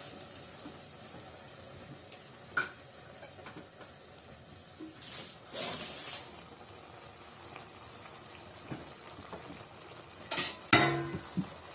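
Scattered knocks and scrapes of metal cookware around an aluminium pressure cooker of biryani, over a faint steady hiss. Near the end comes one loud metallic clank that rings briefly, followed by a smaller knock.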